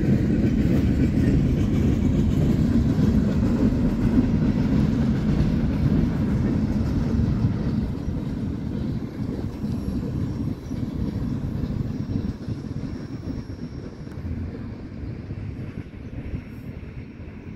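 Freight train of autorack cars rolling past, a steady heavy rumble of wheels on rail that fades over the second half as the train draws away.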